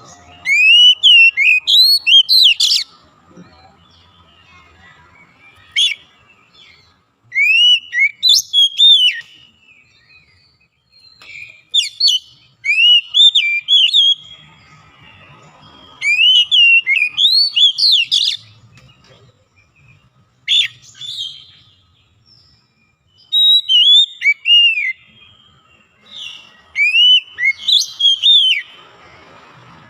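Oriental magpie-robin (kacer) singing: loud bouts of rapid, swooping whistled notes, each bout about two seconds long, about seven of them with short pauses between.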